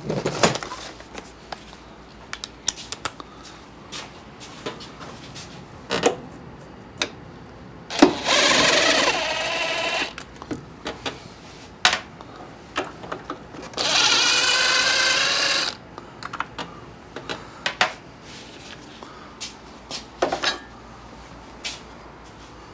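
Cordless impact driver with a socket on an extension, run in two bursts of about two seconds each, backing out 10 mm bolts that hold the intake-side wire channel. Between the bursts come short clicks and clinks of tools and parts being handled.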